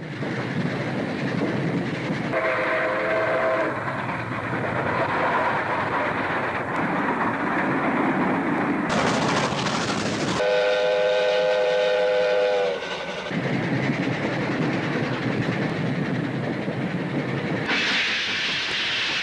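Steam locomotive running, with a steady rush of track and exhaust noise. Its chime whistle blows twice: a short blast about two and a half seconds in, and a longer chord of several tones around eleven seconds in that sags in pitch as it cuts off. Near the end the noise turns hissier.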